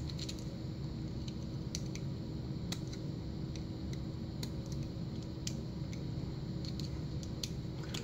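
Scattered small metallic clicks and scrapes as the retaining clip is worked off the back of an American Lock 5200 brass lock cylinder, about a dozen light ticks over a steady low background hum.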